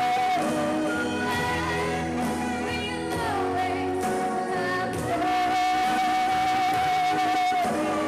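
A girl singing into a microphone over instrumental backing music. About five seconds in she holds one long, steady note for roughly two and a half seconds.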